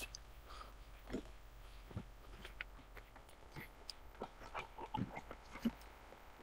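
Faint, irregular clicks and rustles of hands and tools working on the parts of a portable compressor being taken apart.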